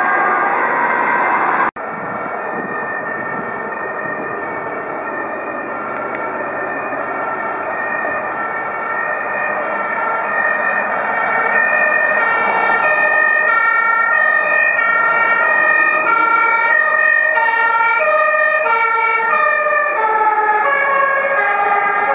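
Two-tone sirens on a fire engine and an emergency car responding, several horns alternating between a high and a low pitch and overlapping. There is a brief dropout just under two seconds in, and the sirens grow louder from about ten seconds in as the vehicles approach.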